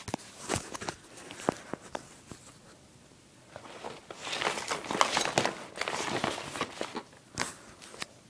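Gear being handled up close: scattered clicks and knocks, then a few seconds of rustling with more clicks starting about four seconds in, and a sharp knock near the end.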